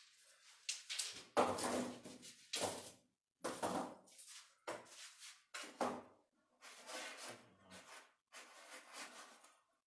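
Wooden sticks and slats being handled and set in place on a wooden wing frame: a string of irregular knocks and scrapes, about eight in all, some short and some drawn out for about a second.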